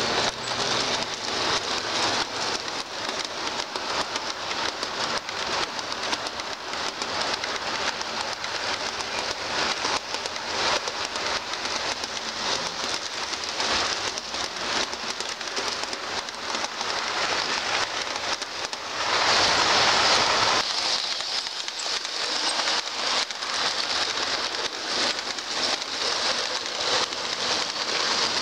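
O scale model train running on two-rail track: the wheels click and rattle fast over the rail joints in a dense, crackling patter over a steady hiss. About two-thirds of the way through, a louder rushing noise lasts a second or two.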